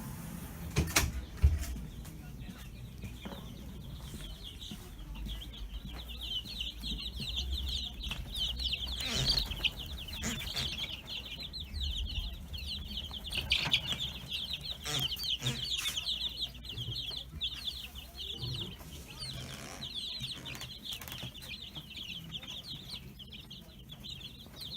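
Many young chicks peeping without a break, a dense chorus of short high cheeps overlapping one another, over a steady low hum. A couple of sharp knocks come about a second in.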